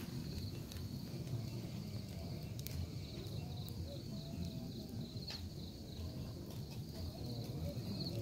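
Crickets trilling steadily in a high, pulsing chorus over the low rush of a wood campfire, with a couple of sharp pops from the burning wood.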